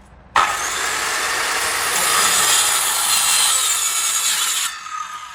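A power tool cutting into hard material for about four seconds with a steady high whine, then lifted off; its motor keeps whining as it winds down.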